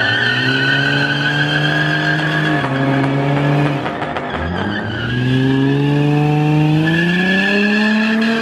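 A car doing a burnout: the engine is held at high revs while the tyres squeal steadily. The revs drop for a moment about three to four seconds in, then climb steadily again to the end.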